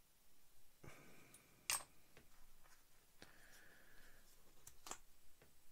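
Near silence with a few faint clicks and taps of small plastic parts being handled, the sharpest about one and a half seconds in, as a plastic glue bottle is capped and a plastic model chassis rail is held in place.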